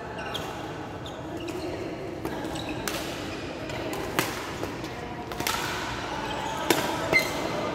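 Badminton rally in a large hall: rackets strike the shuttlecock about eight times at uneven intervals, with short squeaks from shoes on the court floor, over a steady murmur of voices.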